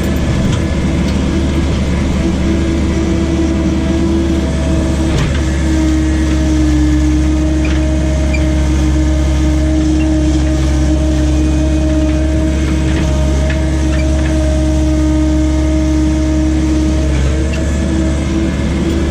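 John Deere skid steer's diesel engine running steadily under load, a deep hum with a steady whining tone over it. A short knock comes about five seconds in.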